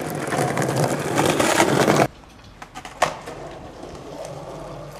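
Skateboard wheels rolling on pavement, growing louder, then cutting off abruptly about two seconds in. A single sharp knock follows about a second later.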